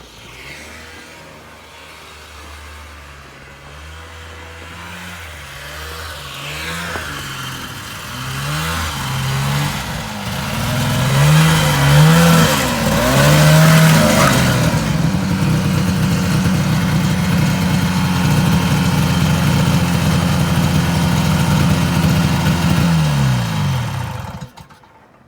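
Vintage 1970s John Deere snowmobile's two-stroke engine running, growing louder as it comes closer and revving up and down about halfway through. It then runs steadily before its pitch drops and it stops suddenly near the end.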